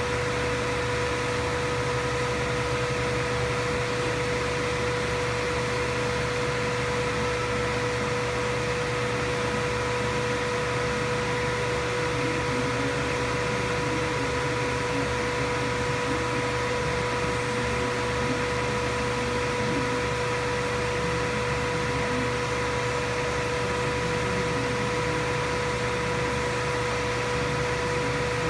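Steady electric machine hum with a constant high-pitched whine over it and a light hiss, unchanging throughout.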